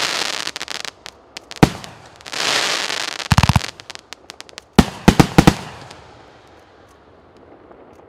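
Consumer fireworks cake (C9009 'Oligarkh', 2 × 25 shots) firing: sharp bangs with long hissing, crackling bursts, a rapid string of pops about three seconds in and a cluster of bangs around five seconds, then it dies away as the cake finishes.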